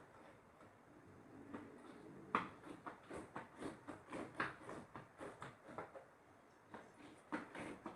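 Slime being kneaded and pressed by hand, making quick sticky squelching clicks, about three a second, with a quieter stretch at the start and one sharper pop about two and a half seconds in.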